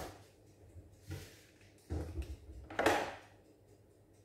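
A few short knocks and clatters of a kitchen wall-cabinet door being handled and opened, the loudest about three seconds in.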